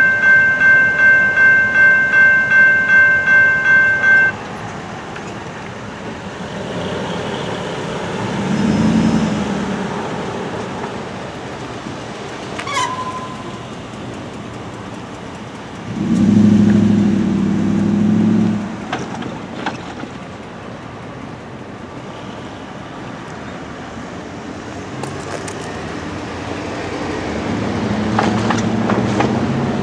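Railroad crossing's General Signals Type 2 electronic bell ringing in quick, even strokes, cutting off about four seconds in as the crossing is deactivated. Road traffic then passes through the crossing, with one louder vehicle going by a little past halfway.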